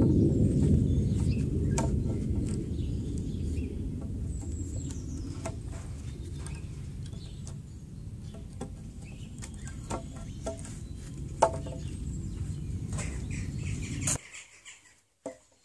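Low rumbling background noise that fades and then cuts off abruptly near the end, with scattered light clicks and a few faint high bird chirps.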